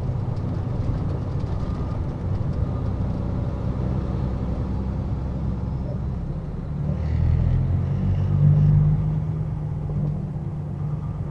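Semi truck's diesel engine running with road noise while driving, a steady low rumble; about seven seconds in the engine grows louder for a couple of seconds, then eases again.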